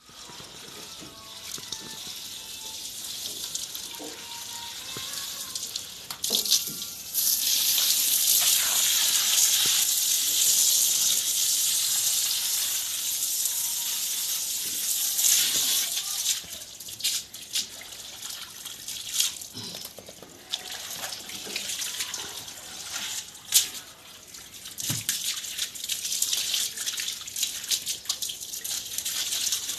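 Water gushing and splashing as a buffalo is washed. It runs steadily and loudest from about seven to fifteen seconds in, then comes in uneven splashes.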